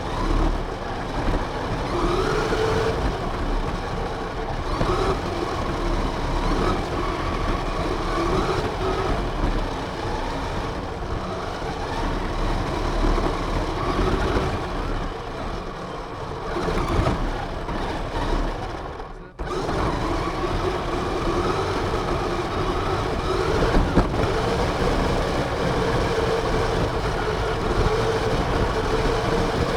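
Radio-controlled car's motor and drivetrain heard from an onboard camera: a whine that wavers up and down in pitch with the throttle, over a steady rumbling rattle. The sound cuts out briefly about two-thirds of the way through, then carries on.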